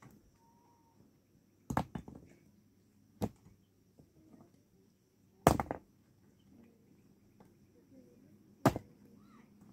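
Four sharp blows at uneven spacing, from about a second and a half to three seconds apart, the two later ones loudest.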